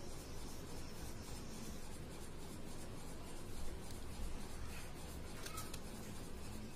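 Crayon scratching and rubbing on paper laid on a clipboard as a drawn face is coloured in, a steady low scratching with a few sharper strokes about five and a half seconds in.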